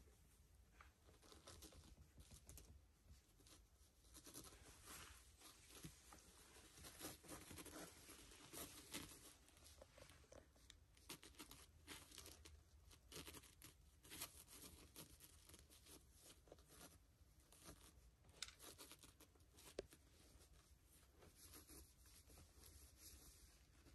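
Faint, irregular crinkling and rustling of a plastic-backed puppy pad, with soft clicks, as newborn puppies nurse and shove against it with their paws.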